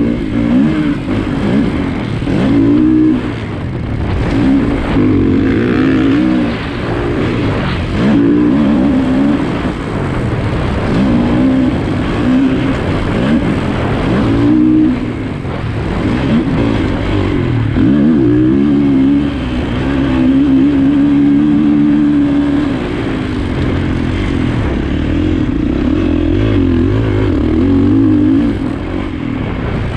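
Motocross bike engine revving hard and easing off again and again as it is ridden around a dirt track, its pitch rising and falling with each throttle opening and gear change, held steadier for a few seconds past the middle.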